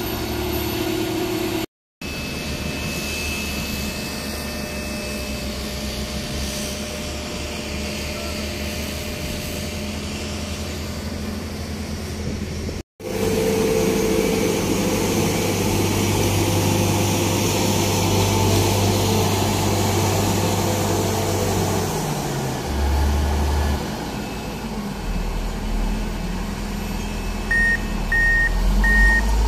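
Heavy diesel engine of construction machinery running steadily, its note shifting about two-thirds of the way through. Near the end a reversing alarm starts beeping, roughly two beeps a second.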